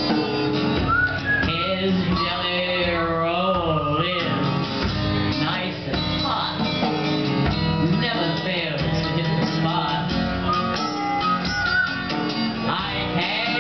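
Live acoustic jazz-blues: a strummed acoustic guitar and a hand drum played with the hands keep a steady rhythm while a woman sings the lead vocal with vibrato.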